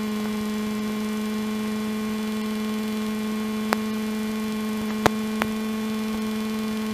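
Steady hum in the cockpit audio of a Robin DR400 light aircraft taxiing, with one faint click about four seconds in and two more about five seconds in.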